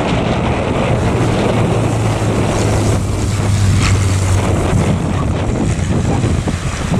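Strong gusty wind buffeting the microphone over the low steady drone of an aircraft engine, the drone fading about four and a half seconds in.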